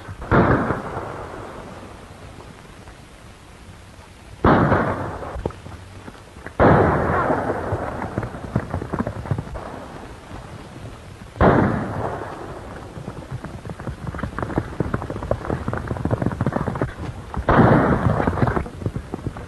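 Five loud, sudden gunshots spread across the stretch, each trailing off in a long, rumbling tail, with a dense clatter between them.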